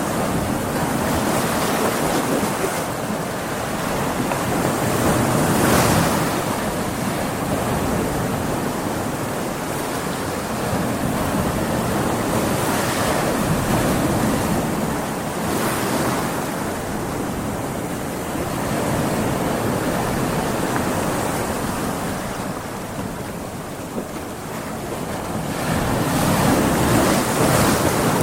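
Heavy surf from a stormy sea: big waves breaking and washing on a beach in continuous rushing noise that swells and falls every few seconds, with wind.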